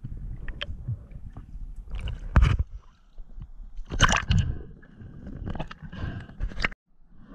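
Water gurgling and sloshing around a diver's GoPro action camera, irregular, with louder splashes about two and a half and four seconds in; the sound drops out briefly near the end.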